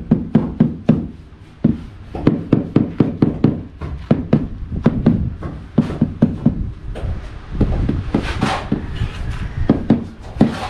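Mallet tapping a ceramic floor tile down into a dry-pack sand-and-cement bed: a fast run of dull knocks, about three or four a second, with a short pause about a second and a half in. The tapping beds the tile firmly into the mortar.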